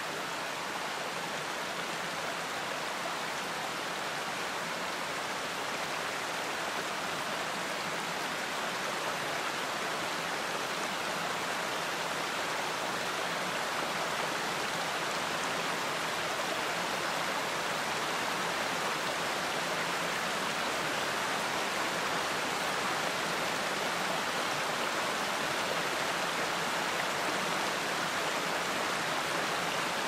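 Steady rush of a rocky stream running over stones, growing slightly louder toward the end.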